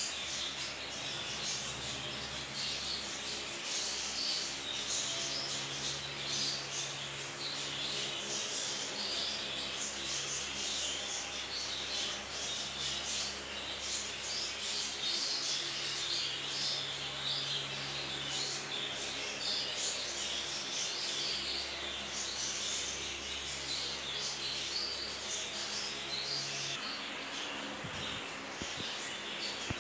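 Hands stirring a heap of dry bird-seed mix, a continuous rustle of grain, with birds chirping throughout.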